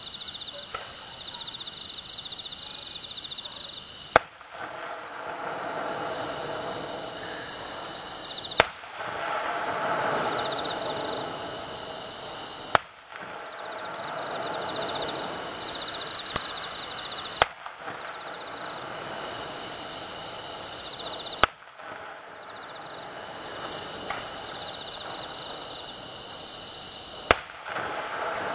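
Distant aerial firework shells bursting: six sharp bangs, about four to five seconds apart. Insects chirp steadily underneath.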